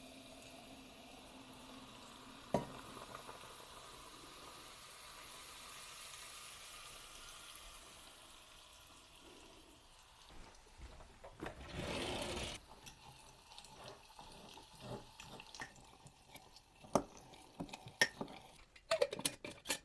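Hot oil poured over dried minced garlic, red pepper flakes and spices, sizzling as a steady hiss. About twelve seconds in comes a louder rush of noise, and near the end a string of clinks and knocks.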